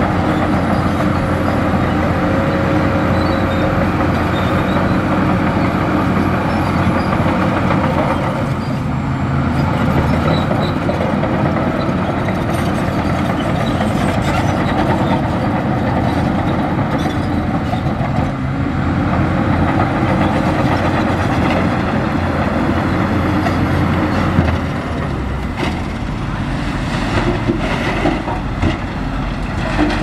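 Heavy diesel earthmoving machine running steadily under work, easing off briefly twice. About three-quarters of the way through its low drone drops after a knock, and a few more knocks follow near the end.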